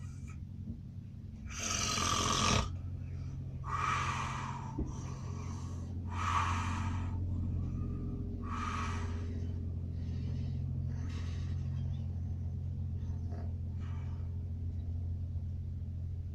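A man snoring heavily in his sleep, one snore about every one to two seconds, loudest in the first half and growing fainter later. Under it runs the steady low hum of the moving train.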